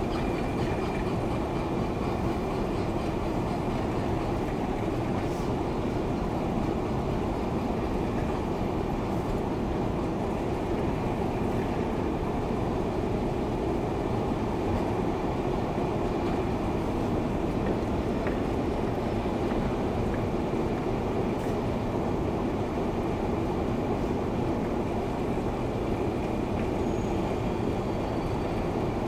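Moscow metro escalator running while being ridden up its long incline: a steady mechanical rumble with a faint high whine.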